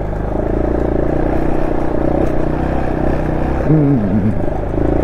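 Honda SL230's air-cooled single-cylinder four-stroke engine running steadily with the bike under way, breathing through an aftermarket muffler with its carburettor re-jetted to suit.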